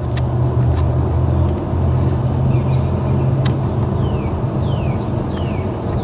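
Steady low engine rumble, as of a motor vehicle running close by, with a series of short high falling chirps in the second half.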